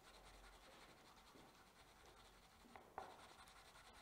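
Pencil scribbling faintly on paper, colouring in a cut-out paper heart, with one short tap about three seconds in.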